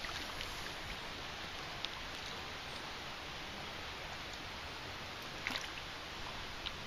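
Shallow river water running steadily over a rippling riffle, with a couple of faint clicks about two seconds and five and a half seconds in.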